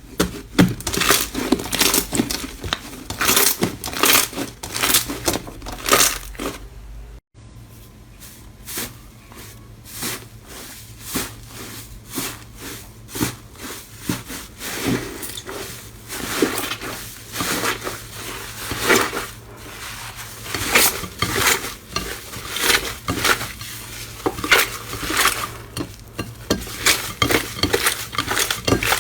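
Slime being squeezed and pressed by hand: a continuous run of sharp wet crackles, clicks and pops, with a brief dropout about seven seconds in.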